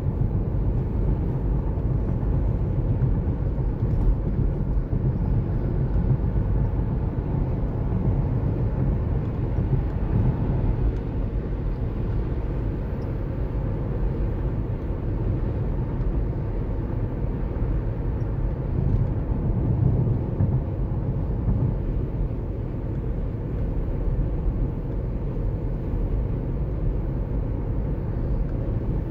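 Steady road noise of a moving car heard from inside the cabin: an even low rumble of tyres and engine.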